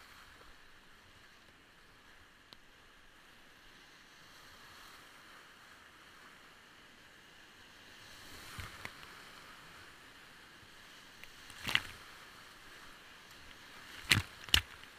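Steady rush of a big-water whitewater rapid around a kayak. Sharp splashes come as waves break over the bow, once at about two-thirds through and twice in quick succession near the end.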